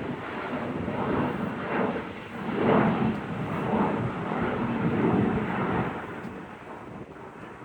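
Embraer E175's twin turbofan engines at takeoff thrust: a loud, uneven rumble that surges and wavers, then fades over the last second or two as the jet moves away.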